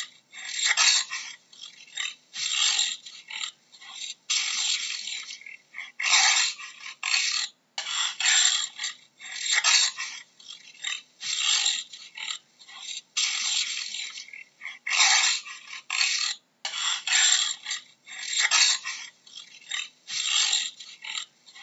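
Jaguar giving its hoarse sawing call: a long run of rough strokes, about one or two a second, some merging into longer stretches.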